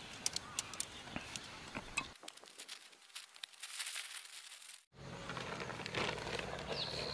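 Tent fabric rustling and crinkling as it is folded up, with scattered small clicks and crackles; the sound breaks off and changes abruptly about two and five seconds in.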